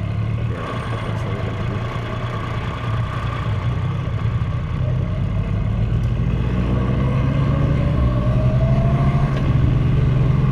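Triumph Rocket 3's 2.5-litre inline-three engine running at low speed, its note rising gradually and getting louder in the second half as the bike picks up speed.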